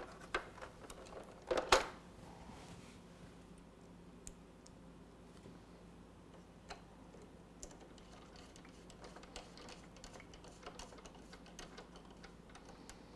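Small clicks and taps of a screwdriver and hard plastic toy parts being handled while small screws are driven into the plastic. A couple of louder knocks come about a second and a half in, then faint scattered ticks.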